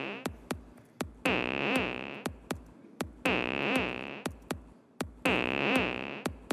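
Live-coded electronic music from Sonic Pi: a low :zawa synth note on C2 starts three times, two seconds apart, each with a sweeping, wobbling buzz that fades away. Under it a house kick drum sample plays a 5-in-8 Euclidean rhythm on quarter-second steps.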